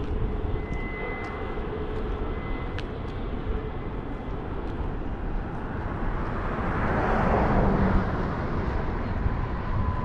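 Low, steady rumble of a distant freight train's diesel locomotives, swelling for a couple of seconds about seven seconds in.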